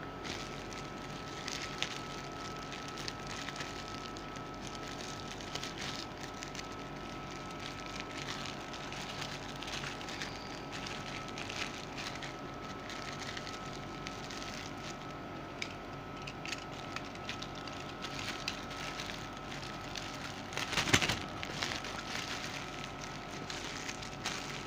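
Plastic gift wrapping crinkling and crackling as a hand works at a package, in scattered small crackles with a louder rustle about 21 seconds in.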